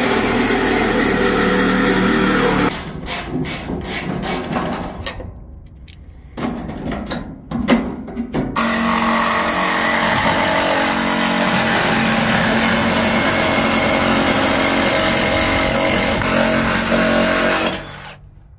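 Cordless power saw cutting through the sheet-metal body panel of an old pickup's box side, running steadily under load. In the middle it goes stop-start with a few knocks, then cuts steadily again and stops suddenly near the end.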